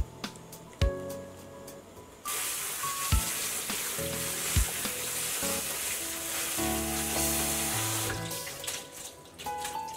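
Kitchen tap running, its stream of cold water splashing onto cooked capellini in a mesh strainer over a steel sink. It starts suddenly about two seconds in and cuts off about eight seconds in. Background music plays throughout.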